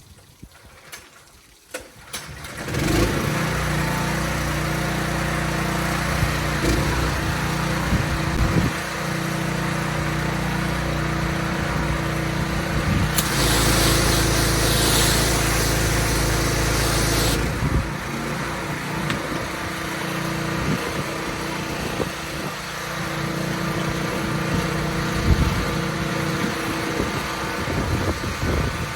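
A small engine starts about two and a half seconds in and runs steadily. From about thirteen to seventeen seconds in, a loud hiss is added on top.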